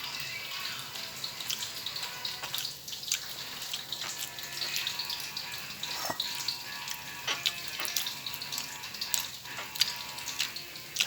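Jackfruit pieces frying in hot oil: a steady sizzle with scattered crackles and pops.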